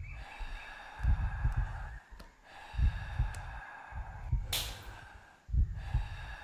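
Heavy, rhythmic breathing close to the microphone, a deep pulse about every second and a half. A short sharp whoosh cuts in about four and a half seconds in.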